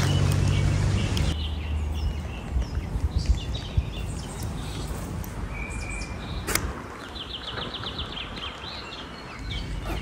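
Songbirds chirping, with a quick rapid trill about seven seconds in, over a steady background hiss. In the first second wind buffets the microphone and a plastic tarp flaps; a few knocks follow, and there is one sharp click about six and a half seconds in.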